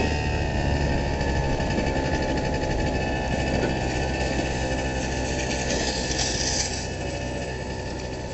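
Honda Elite SA-50 scooter's small two-stroke engine running with a steady buzzing note, growing quieter near the end.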